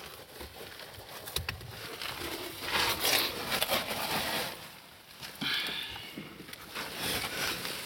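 Fabric of a caving suit rustling and scraping against rock as a caver shifts his body in a tight passage, in a few noisy bursts with scattered small knocks.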